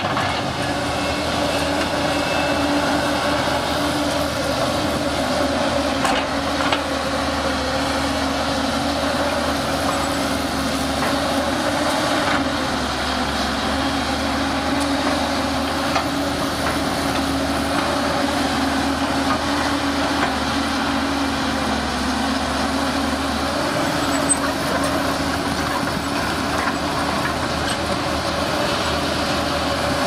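JCB tracked excavator's diesel engine running steadily under load as it digs and swings, with a few short sharp knocks.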